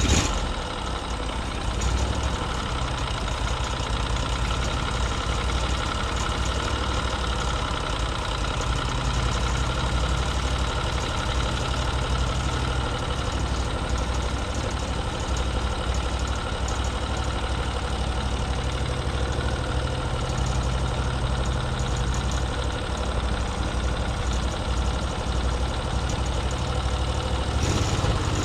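Norwood MX34 portable bandsaw mill running steadily under its gas engine as the band blade saws along a log, with the sound shifting near the end.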